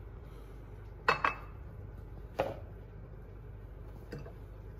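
Light clinks and knocks of kitchenware as cooked broccoli and cauliflower florets are set by hand into a baking dish: a quick double knock about a second in, a single one about a second later, and a faint one near the end.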